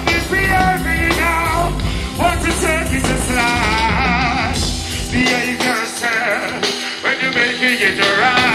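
Live reggae band playing with wavering sung vocals over it. The bass and drums drop out for about two seconds past the middle, leaving the voices and keys, then come back in.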